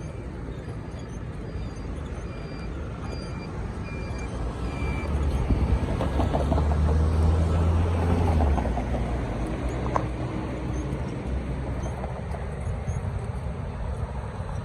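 City street traffic with a large vehicle passing close by. Its low hum swells for a few seconds and then fades. A series of short, high electronic beeps repeats during the first five seconds.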